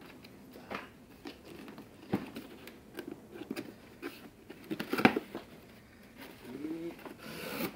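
Paper and cardboard being handled: a folded instruction leaflet rustling, then the flaps of a cardboard box and the retail box inside scraping and knocking as the box is pulled open. The knocks come irregularly, the loudest about five seconds in, with a longer scraping slide near the end.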